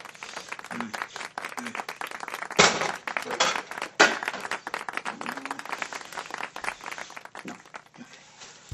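Food sizzling in a pan on the stove with a dense, steady crackle, broken by two loud clanks of cookware, the second as a lid goes onto a pot.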